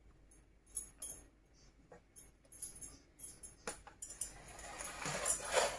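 Wooden spatula spreading thick cake batter in a metal loaf pan, giving faint scattered clicks and taps against the pan. Near the end comes a longer soft scraping.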